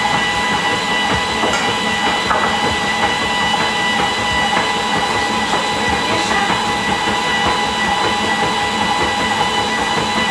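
Electric food processor's motor running steadily as it mixes cake batter, with a steady high whine over the motor noise.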